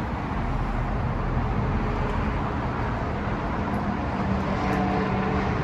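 Road traffic: a steady rush of passing cars, with an engine hum coming in about two seconds in.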